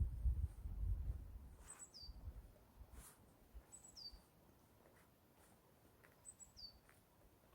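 A small songbird repeating a short high call three times, about every two seconds: a brief high note that drops into a quick downward slur. A low rumble of wind on the microphone fades out over the first second or so.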